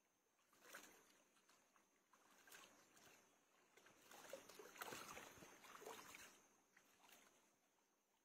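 Faint, irregular splashing and trickling of shallow stream water as it is scooped up by hand and poured over the legs, busiest about halfway through.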